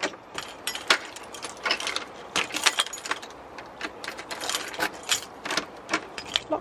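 A bunch of keys jangling and clicking against a door lock as a key is turned in it and drawn out, locking the door. The clicks come many times, at an uneven pace.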